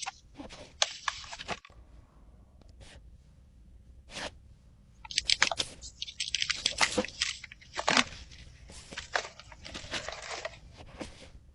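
Paper packaging crinkling, rustling and tearing as a paper blind bag is handled and ripped open by hand, in scattered crackles and then a dense stretch of rustling in the second half.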